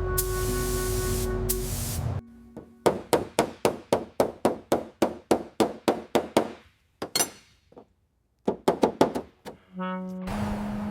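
A spray hiss under background music, then a quick run of sharp knocks, about four a second for some four seconds, like hammer blows in body repair. After a short pause come a few more knocks, and the music comes back near the end.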